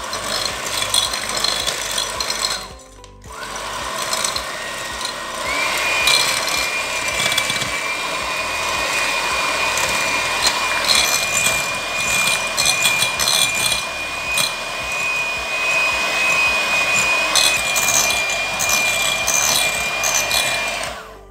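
Electric hand mixer beating eggs and sugar in a glass bowl: the motor runs steadily with a high whine, breaks off briefly about three seconds in, and steps up in pitch about five seconds in. The eggs are being whipped to a pale, white foam.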